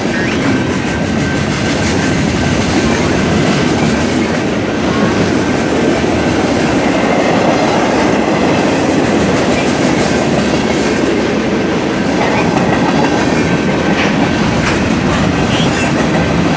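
Freight cars of a passing BNSF mixed freight train rolling by: a loud, steady rumble of steel wheels on rail, with the wheels clicking over the rail joints.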